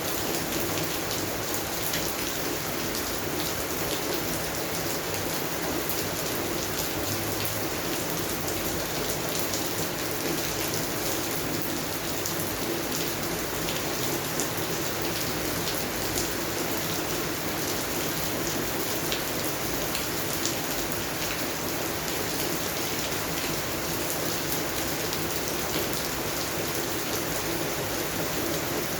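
Steady rain falling on a garden, an even hiss with many individual drops heard as fine ticks.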